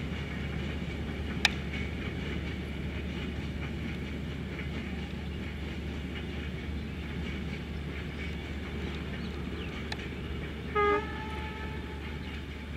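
WDM-3A diesel locomotive and its passenger train running steadily away with a low rumble. A sharp click about a second and a half in, and a short horn toot about eleven seconds in.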